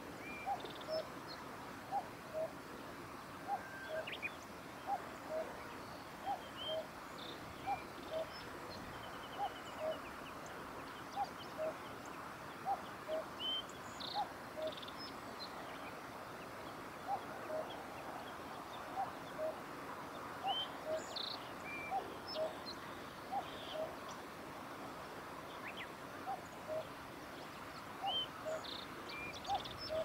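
Common cuckoo singing its two-note 'cuck-oo' call over and over in a steady series, pausing for a couple of seconds around the middle. Faint chirps of other small birds sound higher up.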